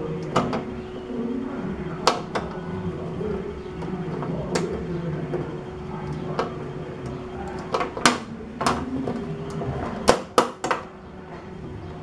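Sharp knocks and clicks of a screwdriver and plastic fittings being handled inside an Electrolux refrigerator's freezer compartment, a few seconds apart with three quick ones near the end, over a steady hum.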